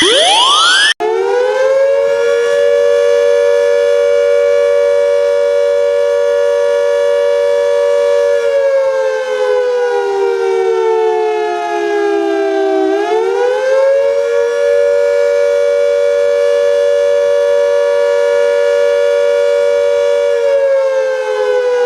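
Fan-made Emergency Alert System alarm with a civil-defense-style siren wail: a loud held tone with many overtones that slowly sinks in pitch about halfway through, swoops back up and holds again. It is preceded by about a second of rapid repeated rising chirps that cut off abruptly.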